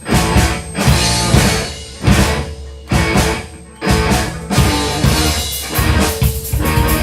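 A rock band playing live: drum kit, bass and electric guitar, with heavy accented hits roughly once a second.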